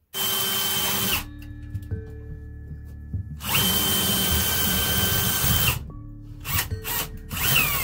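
Cordless drill running in three runs, boring a small hole through the wall for the light fixture's wires: about a second, a longer run of about two seconds midway, then a short run near the end that changes pitch as it winds down.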